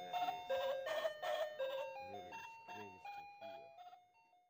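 Background music: a melody of held notes stepping up and down in pitch over a beat, fading out near the end.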